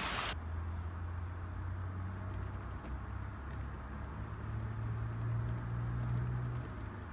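Sound-fitted model Class 47 diesel locomotive giving out its Sulzer diesel engine sound: a steady low rumble that rises in pitch about four seconds in and falls back near the end as the model moves off. A brief hiss cuts off suddenly at the very start.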